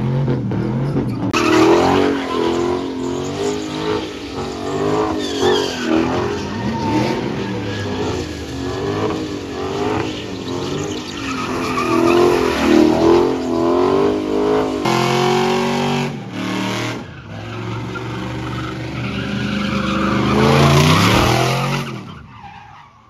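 Dodge Challenger doing donuts: the engine revs up and down over and over while the rear tyres squeal and skid on the asphalt. The sound fades out near the end.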